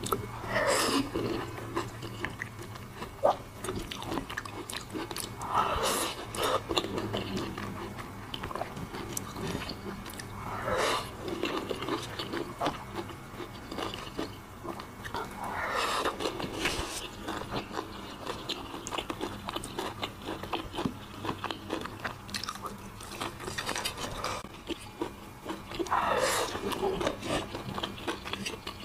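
Close-up chewing and biting of food: saucy eggplant, a piece of crispy sweet-and-sour pork and rice, in many small clicks. A louder, drawn-out sound falling in pitch comes about every five seconds, five times in all.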